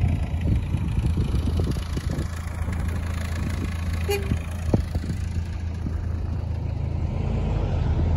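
Red Volkswagen T4 campervan driving along: steady engine hum and road rumble, with wind buffeting the microphone.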